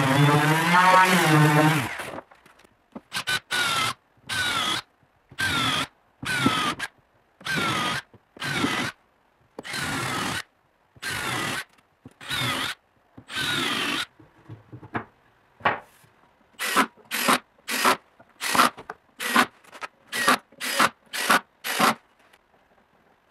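A hand-held electric sander runs on a hardwood panel for about two seconds, its pitch wavering. Then a power drill bores a row of holes in the panel in short separate bursts, a dozen or so, each under a second long. Near the end the bursts come quicker and shorter.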